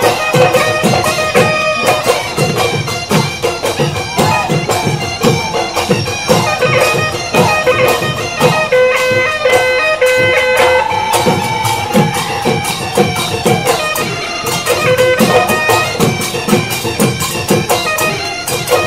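Live Assamese Bihu folk music: drums keeping a quick, steady beat under a reedy wind-instrument melody of long held notes.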